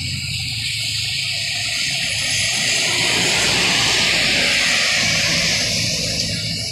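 A light truck passing close on a wet road: the hiss of tyres on the wet surface swells to a peak about halfway and fades again, with the engine's low running heard underneath. A motorcycle engine is heard near the start.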